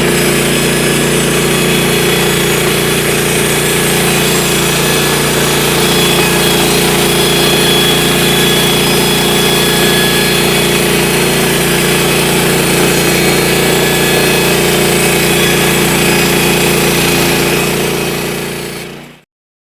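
Portable band sawmill's gas engine running steadily under the whine of the blade; the sound fades out near the end.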